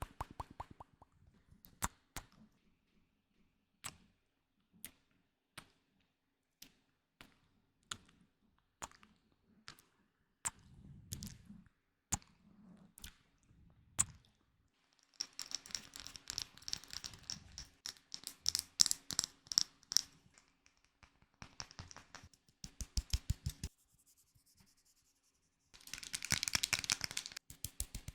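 Close-miked ASMR trigger sounds: single sharp taps or clicks about once a second for the first half, then stretches of crinkling and scratching noise broken by a quick run of clicks.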